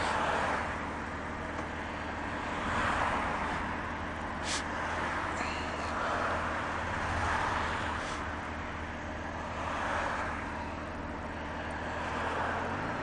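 2013 Honda Gold Wing F6B's flat-six engine running at a steady cruise, under road and wind noise that swells and fades every few seconds.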